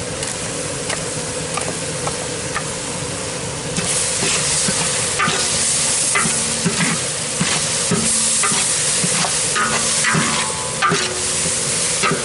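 Sliced onions and green chillies sizzling in oil in a large metal pot while ginger-garlic paste is stirred in, the metal ladle scraping and knocking against the pot. The sizzle grows louder about four seconds in.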